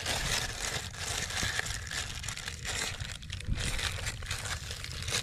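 Continuous crinkling and rustling as hands press wet mud and a plastic sheet into a rice-paddy bund, with irregular small crackles.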